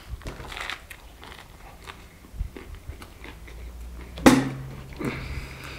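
Close-miked mouth sounds of a man biting into and chewing a big mouthful of pizza: wet chewing with small clicks, and one loud sharp smack about four seconds in.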